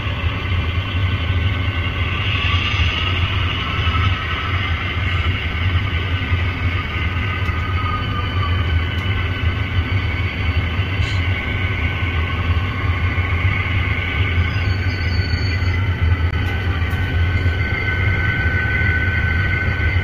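Diesel locomotive sound running steadily: a low rumble under several slowly drifting higher tones.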